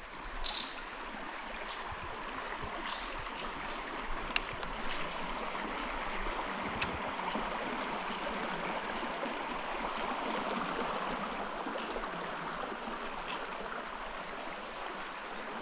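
Steady rush of flowing creek water, with a few faint clicks.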